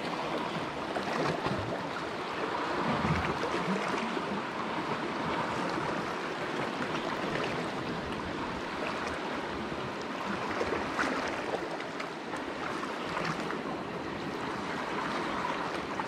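Sea water washing and lapping against shore rocks, a steady rushing hiss.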